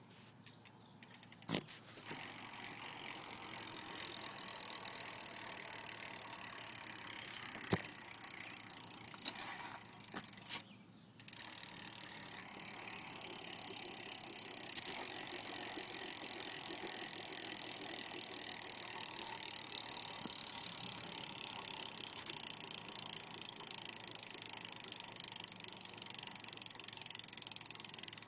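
Vintage Mongoose BMX bike's spoked wheel spinning, its freewheel hub ratcheting steadily. There are a couple of sharp knocks near the start and a short break around the middle.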